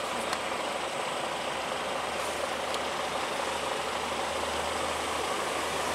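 A vehicle engine idling steadily under an even hiss, with its low hum growing slightly stronger near the end.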